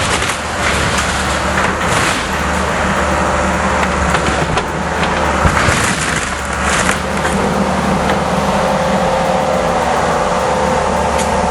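Hydraulic excavator's diesel engine running steadily, with several crunching, cracking crashes of debris as it tears into a building.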